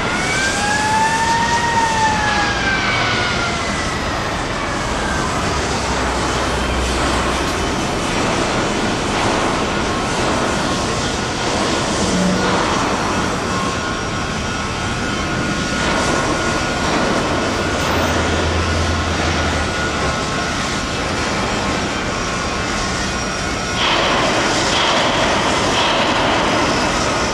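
Steady mechanical roar with a faint constant whine. A pitch rises and then falls over the first few seconds, and a harsher, louder noise comes in near the end.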